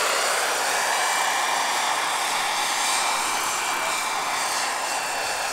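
Scale radio-controlled Bell 47G-3B-1 model helicopter flying, its rotor and drive giving a steady whooshing whine that grows slightly quieter near the end.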